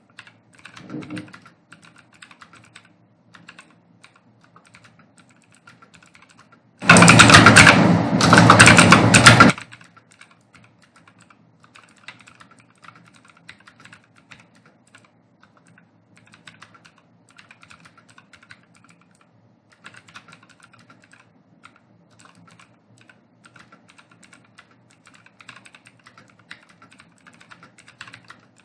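Computer keyboard typing: quick, continuous keystrokes, fairly faint. About seven seconds in, a much louder rushing noise covers everything for about two and a half seconds, then the typing carries on.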